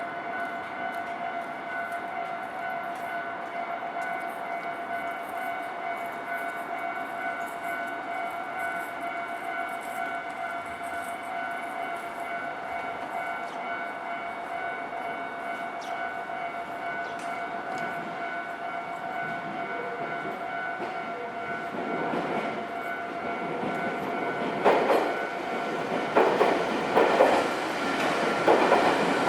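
Japanese railway level-crossing alarm ringing steadily in a repeating electronic tone as a JR Kisei Main Line train approaches. From about 22 seconds the train's running noise grows louder. From about 25 seconds its wheels knock in a loud clatter over the rail joints as it passes.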